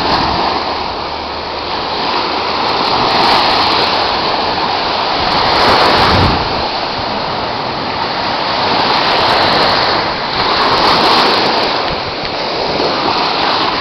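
Sea surf: small waves breaking and washing up over a sandy beach, the rush of water swelling and easing every few seconds.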